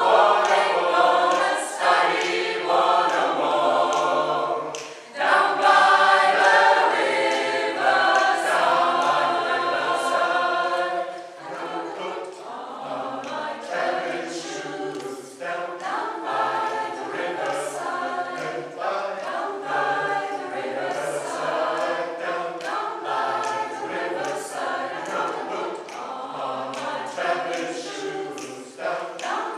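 Mixed choir of men's and women's voices singing a cappella. There is a short break in the singing about five seconds in, and from about eleven seconds on it goes on more softly.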